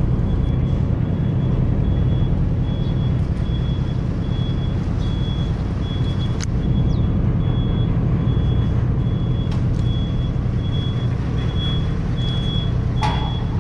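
Ferry's engines running with a steady low rumble, while an electronic reversing-type beeper sounds a regular series of short high beeps. A few sharp knocks come about halfway through and near the end.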